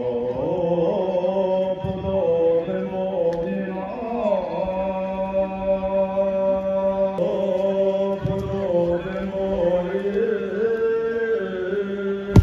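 A man singing a slow song into a microphone over a public-address system, holding long, steady notes with a few slides between them. The singing starts abruptly at the beginning, and a single sharp knock comes right at the end.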